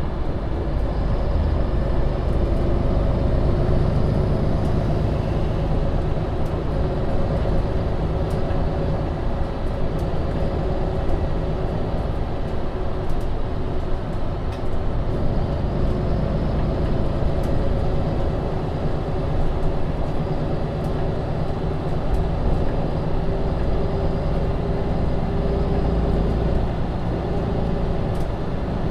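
MAN Lion's City city bus (Euro 6) under way, its diesel engine and drivetrain running at a steady, even level with road noise, heard from inside the bus.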